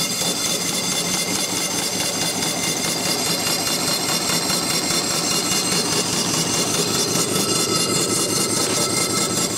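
Small single-cylinder steam engine on a vertical wood-fired boiler, running fast with a rapid, even beat of exhaust over a steady steam hiss. Its cylinder has just been oiled with steam oil.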